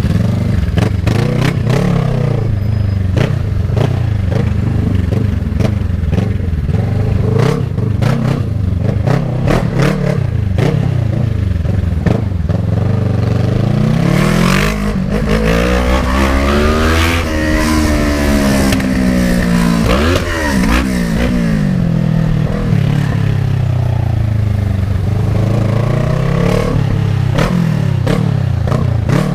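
Kawasaki ER-6n's 650 cc parallel-twin engine running loud under way, its pitch climbing and dropping several times as it revs up and eases off. Many sharp crackles come through in the first half.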